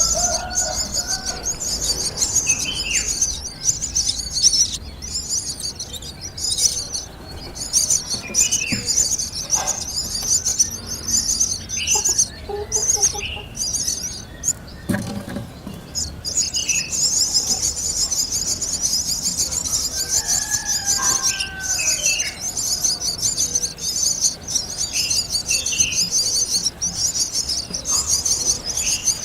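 Scattered short bird chirps over a steady, high-pitched, pulsing insect chorus that drops out briefly now and then.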